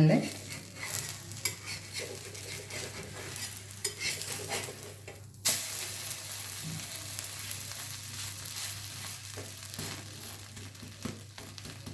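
Egg-and-milk-coated bread sizzling as it fries in a pan, with a few light clicks. About five and a half seconds in, the sizzle suddenly gets louder and hissier and stays so.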